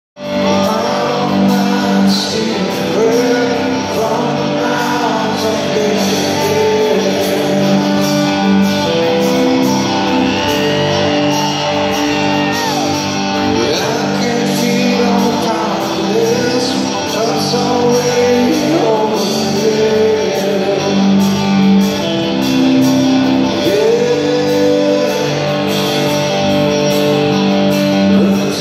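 Live rock band playing in a reverberant hall, recorded from the audience: electric guitars, bass and drums with a male lead vocal.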